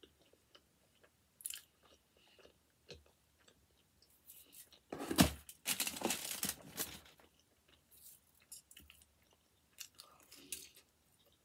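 Close-up mouth sounds of chewing and crunching a slice of veggie pizza with its crust, in scattered soft crackles, with a louder spell of crunching and handling noise about five seconds in.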